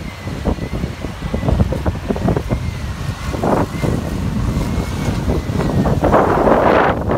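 Strong gusty storm wind buffeting the microphone with a low, uneven rumble, and a louder rushing gust about six seconds in.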